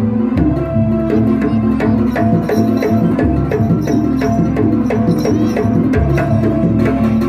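Live Banyuwangi gamelan music accompanying a barong dance: hand drums beating a quick, busy rhythm over struck metal percussion and held melodic tones.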